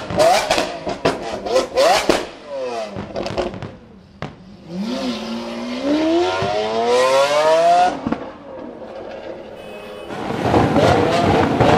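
Lamborghini Aventador's V12 revved in short sharp blips with loud pops, then accelerating hard, its note climbing steadily for about three seconds before dropping away. Another engine is heard near the end.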